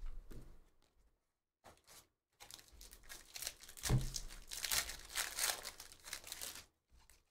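A foil Panini Prizm football hobby pack is torn open and crinkled by hand, starting about two seconds in, with one sharp rip about four seconds in.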